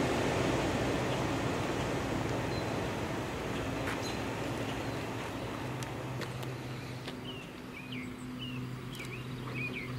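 Rumble of a Reading & Northern Budd RDC diesel railcar train fading away after it passes, over a steady low engine drone. Birds chirp from about seven seconds in.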